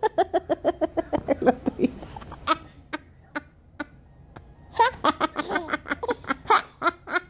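Toddler laughing in quick high-pitched bursts: a run of laughs that fades out after about two seconds, a few single breathy laughs, then a fresh fit of laughter about five seconds in.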